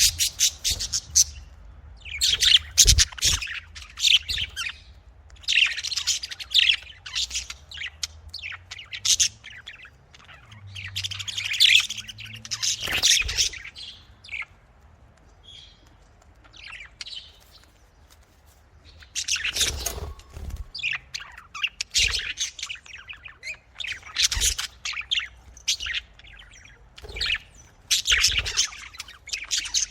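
Pet budgerigars chirping and chattering in rapid bouts of squawky warbling, with a quieter spell in the middle. A few short knocks sound among the chirps.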